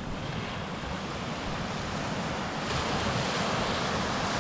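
Sea surf washing onto the beach, with wind rumbling on the microphone; the wash swells louder about two and a half seconds in.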